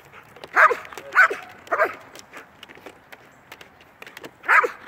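A working dog barking at a helper in a bite suit during protection training: three loud barks about half a second apart, a pause of about two and a half seconds, then another bark near the end.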